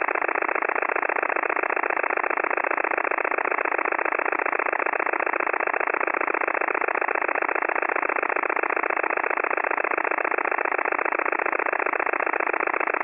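Radio signal received at 100.0 kHz through a web software-defined radio: a steady, rapid pulsing buzz heard through the receiver's narrow audio passband that sounds like an idling diesel engine. 100 kHz is the frequency of Loran-C/Chayka navigation pulse trains.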